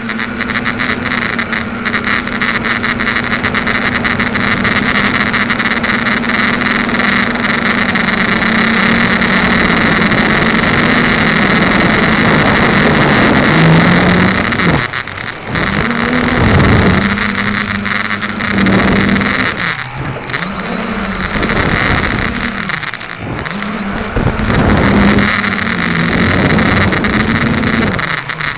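SK450 quadcopter's electric motors and propellers buzzing, heard from the onboard camera: a steady drone for the first half, then from about fifteen seconds in the pitch swoops down and up again and again, with several short drops in loudness, as the quad throttles through flips and rolls.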